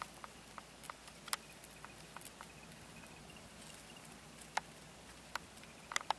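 Quiet outdoor ambience with faint, scattered sharp clicks and ticks at irregular intervals.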